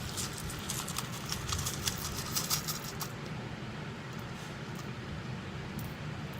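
Small plastic googly eyes rattling and pattering as they are poured out, a quick run of light clicks for about three seconds that then thins out.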